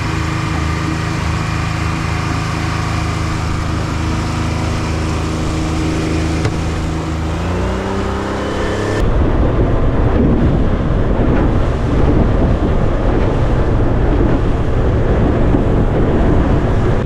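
Boat's outboard motor running steadily, its pitch rising about seven to eight seconds in as the throttle opens. From about nine seconds in a louder rushing of wind and water takes over as the boat travels under way.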